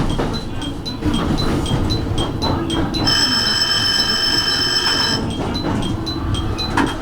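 JR Kyushu electric train running, with a steady rumble of wheels and motors and a short high tick about twice a second. About three seconds in, a bright chime of several tones sounds for about two seconds.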